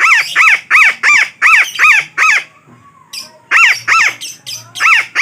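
Betet (red-breasted parakeet) calling: a rapid run of about seven loud calls, roughly three a second, each arching up and then down in pitch, then a short pause and two more pairs of calls.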